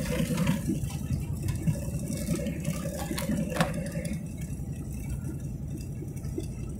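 Fox-body Mustang GT's Ford 302 V8 running at low revs, heard from inside the cabin: a steady low rumble.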